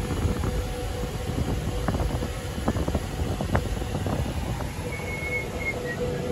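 Mercedes-Benz car driving at street speed, heard from inside the cabin: a steady low road-and-engine rumble with a faint steady hum and a few short clicks.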